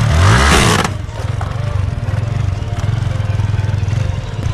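Yamaha 155 cc single-cylinder motorcycle engine revved once briefly, then settling to a steady, fast-pulsing idle.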